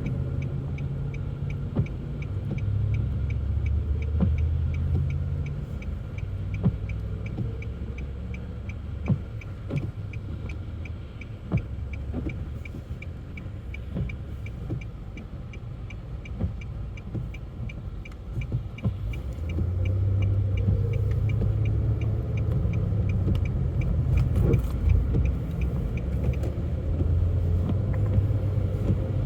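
Car engine and road rumble heard inside the cabin, with a turn-signal indicator ticking steadily about twice a second until near the end. Scattered short knocks come through, and the low rumble grows louder about two-thirds of the way in as the car picks up speed.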